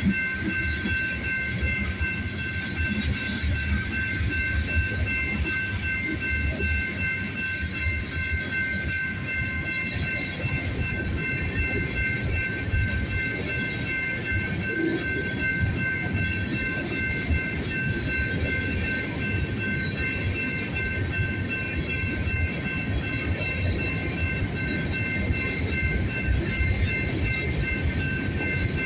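Freight cars of a Union Pacific train rolling past: a steady low rumble with clatter of wheels on rail joints, and over it a steady high-pitched squeal of wheels on the curve.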